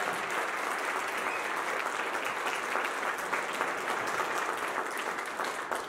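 A roomful of guests applauding, steady clapping that stops near the end.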